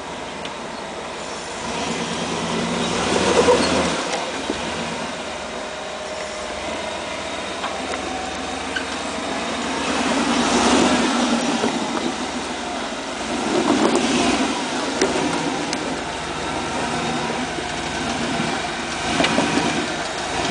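Off-road 4x4's engine running and revving up in about four surges, with a few faint knocks near the end.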